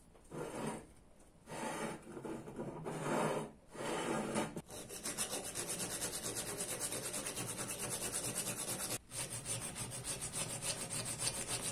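Knife blade being worked by hand against an abrasive, rubbing and rasping. There are a few separate strokes at first, then from about five seconds in a quick, steady back-and-forth rhythm that breaks off briefly near nine seconds.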